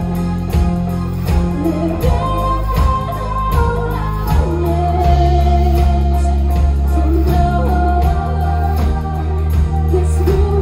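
Live band playing loud amplified music: a woman singing lead into a microphone over electric guitars, bass guitar and a drum kit keeping a steady beat.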